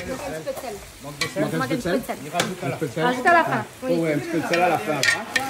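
Cooking noise from a pot of stew being stirred on a gas ring, under voices chatting, with a few sharp clinks of utensils.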